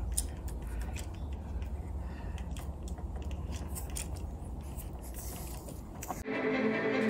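Electrical tape being unwound and wrapped around a duplex receptacle's terminal screws, a run of small irregular crackles and clicks over a low rumble. Background music comes in abruptly near the end.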